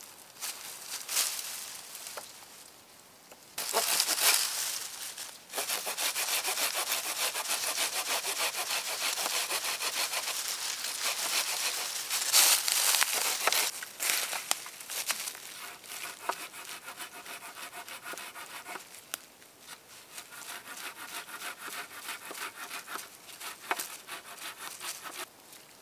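A hand saw cutting through wood: a loud rasping burst a few seconds in, then about eight seconds of steady sawing, then lighter, more broken strokes that fade toward the end.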